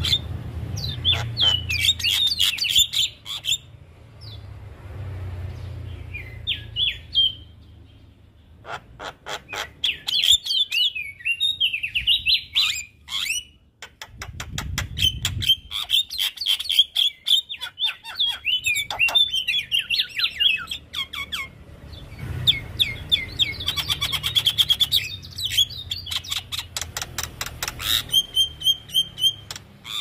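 Javan myna singing a long, varied song: runs of chirps and fast trills broken by series of sharp clicks, with a faint low hum underneath.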